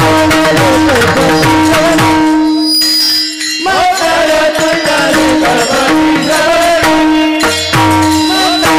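Varkari bhajan music: a steady held drone note and hand-drum strokes, with a brief drop about three seconds in, after which a voice enters with a rising slide and sings a long, ornamented melodic line.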